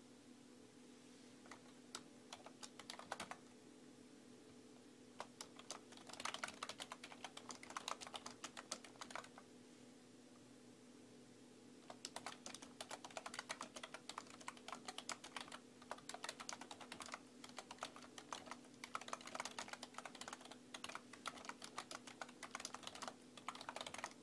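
Typing on a computer keyboard: a few scattered key taps, then a quick run of clicks, a pause of a couple of seconds, and steady fast typing through the rest. A faint steady low hum sits underneath.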